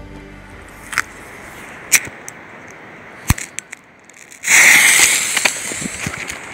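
A few sharp clicks of a lighter being struck, then the green fuse of a Rambo 31K firecracker catching about four and a half seconds in and sputtering with a loud hiss that fades over the next two seconds.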